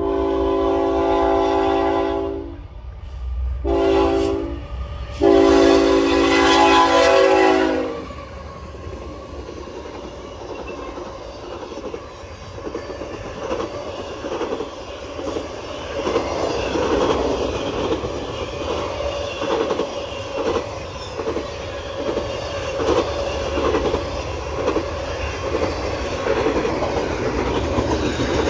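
A BNSF freight locomotive's multi-chime air horn sounds a long blast, a short one and a final long blast, the close of a grade-crossing signal. Then the intermodal train rolls past with a steady rumble and a rhythmic clatter of wheels over the rail joints.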